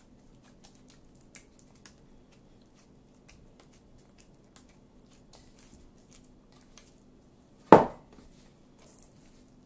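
Hands kneading and pressing pizza dough in a stainless steel bowl: faint squishing and soft taps, with one loud dull thud against the bowl near the end as the dough is lifted and worked.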